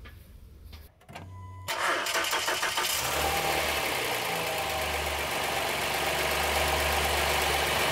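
Honda J30A9 V6 engine started about two seconds in: it catches, flares briefly, then settles into a steady idle. It runs evenly with a freshly replaced timing belt tensioner, the belt roller no longer jumping.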